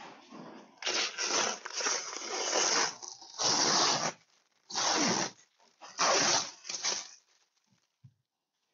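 Protective plastic film being peeled off a polycarbonate windshield, in four rough, crackling tearing pulls lasting about one to two seconds each.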